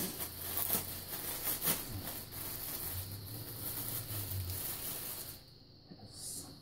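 Packaging rustling as fursuit paws are unwrapped and handled, with scattered small clicks and scrapes. It quietens sharply about five seconds in.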